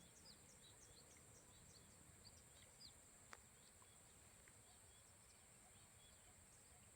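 Near silence: faint outdoor ambience with a steady high insect drone and scattered faint bird chirps, and a single faint click about halfway through.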